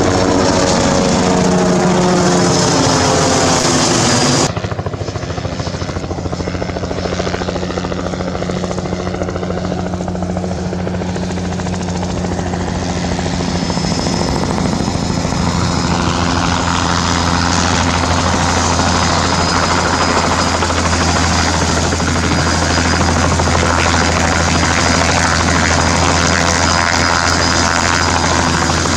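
Bell 206 JetRanger helicopter, a two-bladed main rotor and a single Allison 250 turboshaft, flying past: its pitch falls as it passes in the first few seconds. After a sudden drop in level about four seconds in comes a steadier low rotor beat, growing louder as it comes in low.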